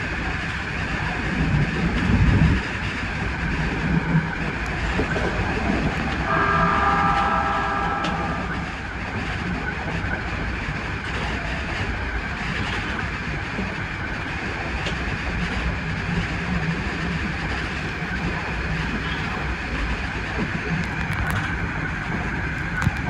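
Odakyu 3000-series electric train heard from the driver's cab as it leaves a station and runs along the line: a steady rumble of wheels on rails with a low surge about two seconds in. A steady multi-note tone sounds for about two seconds, some six seconds in, and a few sharp clicks come near the end.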